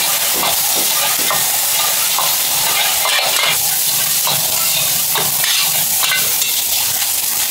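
Fried rice and egg sizzling in a wok, with a metal spatula and ladle scraping and knocking against the wok as the rice is stirred and tossed. The steady frying hiss runs under the stirring, and the scrapes come often and unevenly.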